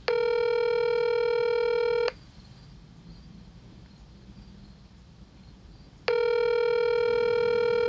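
Telephone ringback tone heard by the caller: two steady rings of about two seconds each, about four seconds apart. This is the call ringing through at the other end, waiting to be picked up.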